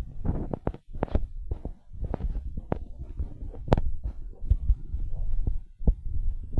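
Magpies pecking at food on a person's legs: irregular dull thumps and sharper taps, several a second, from beaks striking through the clothing.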